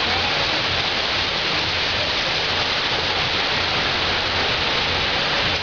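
Steady hiss of heavy rain falling.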